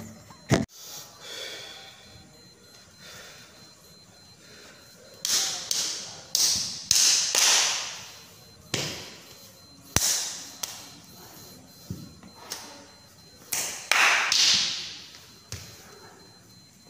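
Irregular sharp slaps and thuds mixed with bursts of swishing, from a barefoot person performing silat strikes and steps on a tiled floor. There is a lone knock near the start, and the swishes and slaps come thick and fast in the second half.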